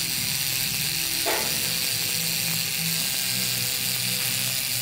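Electric tattoo machine buzzing steadily as the needle works into the skin.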